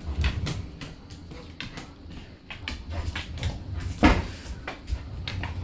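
A dog pushing a bowling ball across a tiled floor: the heavy ball rolling with a low rumble, with scattered knocks and clicks and one louder knock about four seconds in.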